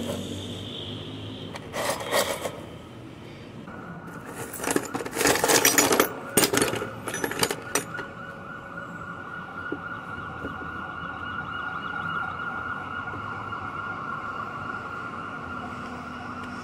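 Rusty scrap metal parts clattering and scraping against each other in a plastic tub as they are sorted by hand, loudest in a run of rattles between about four and eight seconds in. From about four seconds in, a steady high-pitched tone holds in the background.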